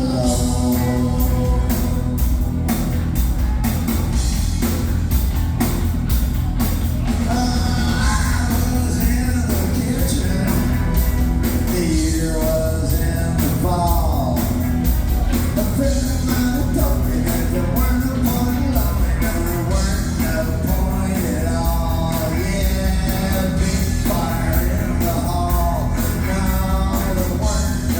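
Rock band playing live with a steady drum beat, and a man singing over it from about eight seconds in.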